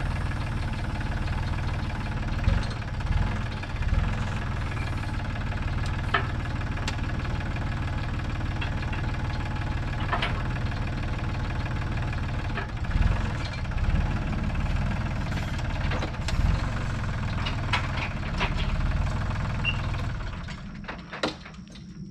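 An engine idling steadily, with scattered sharp knocks and clacks over it; the engine dies away near the end.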